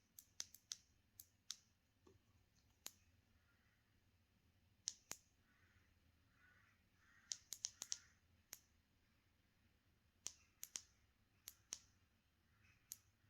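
Power button of a small Olight LED light being pressed over and over, single and double presses, heard as sharp separate clicks in irregular bunches, cycling the light through its colours and modes.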